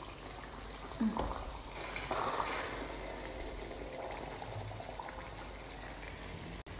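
A spoon stirring a simmering yam and fish pottage in a pan, the sauce sloshing, with a knock about a second in and a short hiss about two seconds in.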